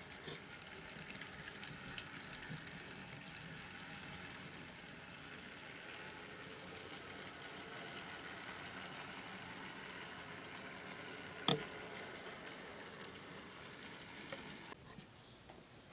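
Large-scale model train rolling past on its track: a steady hiss of wheels on rail with small clicks at the rail joints, loudest as the cars go by, with one sharp click about eleven seconds in. The sound falls away shortly before the end.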